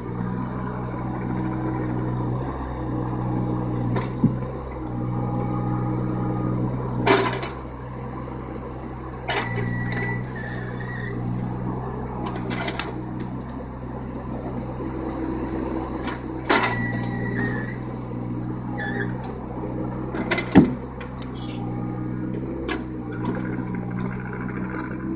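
John Deere 17D mini excavator's diesel engine running steadily while the bucket handles logs, with several sharp knocks of the bucket and logs striking wood, the loudest about twenty seconds in.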